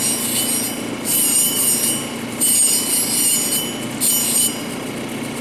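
Cabochon stone held against a wet 220-grit grinding wheel on a cabbing machine, giving a high grinding hiss in four spells of about a second each as the stone is pressed on and eased off, over the steady hum of the machine's motor. The stone comes off the wheel about four and a half seconds in, leaving only the motor.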